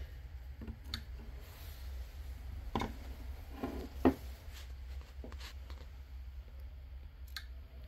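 A few light clicks and taps from a screwdriver and hands working at a bare motherboard and its cables, over a low steady hum.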